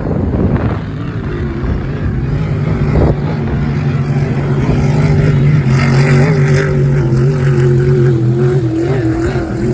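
Racing boat engine running steadily, growing louder over the first several seconds.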